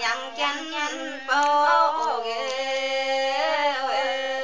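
A woman singing unaccompanied, a folk melody with quick turns of pitch that settles about halfway through into one long held note.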